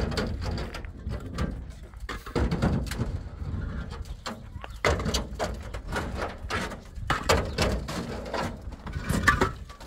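Hollow concrete blocks knocking and scraping against each other and the metal truck bed as they are lifted from a pickup and stacked: repeated sharp clunks, several a second.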